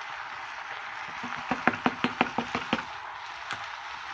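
A quick run of about eight sharp knocks, about six a second, from a plastic cutting board being tapped against the rim of an enamelled cast-iron pot to shake chopped tomatoes off into it. A steady hiss of the vegetables cooking lies underneath.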